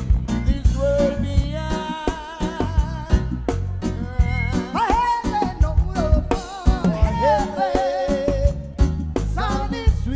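Live reggae band playing: a drum kit's drum and cymbal hits keep the beat under a singer's held, wavering notes.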